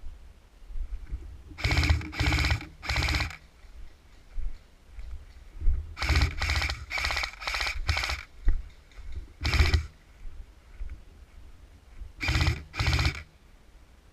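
Airsoft electric gun firing short full-auto bursts, each about a third of a second long. There are eleven bursts, in groups of three, then five, then one, then two.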